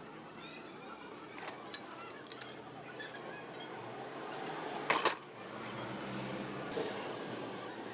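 A series of sharp metallic clinks and clatters, the loudest cluster about five seconds in: hand tools and metal engine parts being handled and set down during engine assembly.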